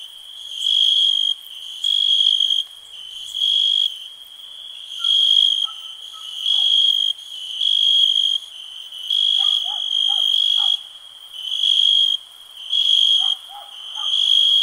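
Crickets chirping: a steady high trill that swells in regular pulses about once every second and a half, with fainter, lower calls of another animal here and there.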